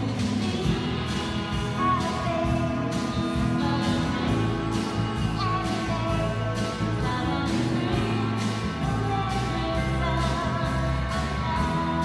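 Live rock band playing a song, with drums, bass, electric and acoustic guitars, keyboard and a singing voice, the cymbals keeping a steady beat.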